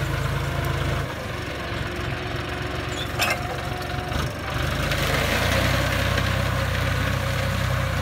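John Deere 5045D tractor's three-cylinder diesel engine running under load as it pulls a disc plough through overgrown grass. The engine sound dips about a second in and comes back fuller around five seconds in, with a short click a little after three seconds.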